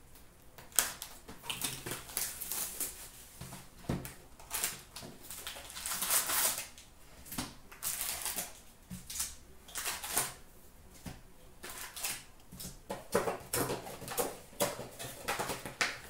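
Cardboard box of trading-card packs being opened and the packs and cards handled: irregular rustling, crinkling and sliding of card stock and wrappers, with a few sharp taps and a denser crinkling stretch about six seconds in.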